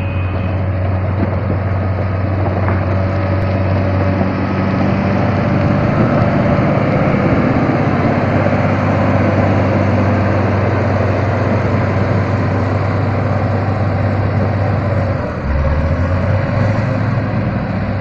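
Caterpillar motor grader's diesel engine running steadily under load as its blade spreads and levels gravel, with a continuous low hum and gravel grinding beneath the blade and tyres. The engine note shifts about three-quarters of the way through.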